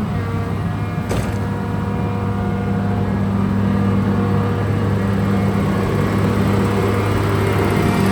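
John Deere 200C LC excavator's diesel engine running steadily under hydraulic work, with one brief knock about a second in. The engine has a noise that the owner takes for a weak or failing injector.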